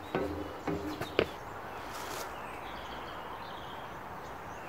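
Outdoor ambience: a steady hiss with faint bird chirps, after a few short knocks and brief voice fragments in the first second or so.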